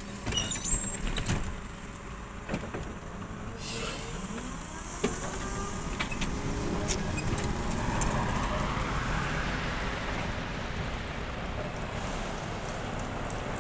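Trolleybus doors closing with a few loud knocks, then the BKM 321 trolleybus pulling away, its motor whine rising in pitch as it speeds up.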